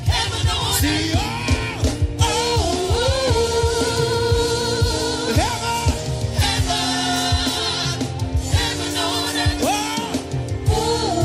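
Worship song: a singing voice with long held and sliding notes over instrumental backing with a steady beat.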